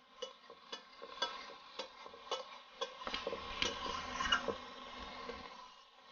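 Flat metal spatula scraping and tapping against an aluminium kadai, about two strokes a second, as it stirs a faintly sizzling mustard masala paste in oil. The masala is fried to the point where the oil is starting to separate from it.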